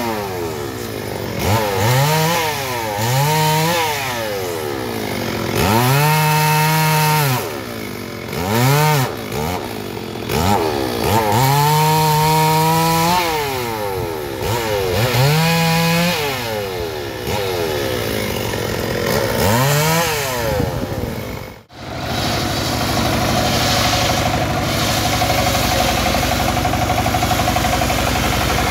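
Two-stroke chainsaw revving up and down over and over while cutting branches off a felled teak tree, with two longer held revs as it bites through wood. About 22 seconds in, this gives way to the steady drone of a homemade rig sawmill: a stationary diesel engine driving a saw blade through a teak log.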